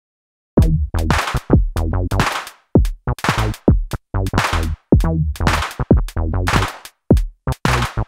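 Dave Smith Instruments Tempest analog drum machine starting a loose hip-hop beat about half a second in, with kick, clap and a low synth bass line. The timing is deliberately unquantized and off the grid, a 'drunken' groove.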